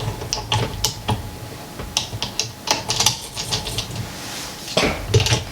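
Irregular clicks and taps of hard plastic camera-mount parts being handled and fitted together.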